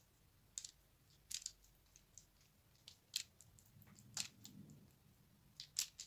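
Silicone pastry brush dabbing glaze onto raw dough on parchment paper: a handful of faint, short taps and clicks at irregular intervals.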